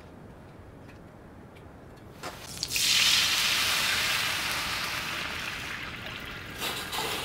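Water poured onto a hot cast-iron griddle coated in pork grease, hissing loudly as it hits the metal and boils. The hiss starts suddenly a little over two seconds in and slowly fades.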